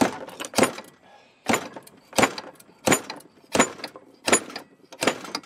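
Eight sharp metallic clanks at an even pace, about one every 0.7 s: a 1970 Honda CB450's inner fork tube being yanked outward so that it slams against its slider, slide-hammering the stuck oil seal loose.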